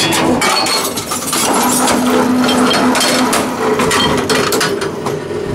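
Tomra T×2 glass reverse vending machine taking in an accepted container: a run of clattering knocks and clinks from inside the machine, with a short hum about two seconds in.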